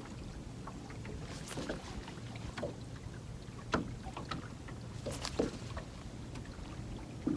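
Small fishing boat on the water: a steady low hum with a few scattered light knocks, about five in all.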